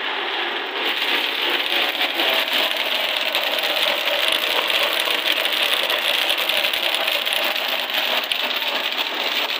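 Countertop electric blender switched on and running steadily, grinding falsa berries into pulp for sharbat.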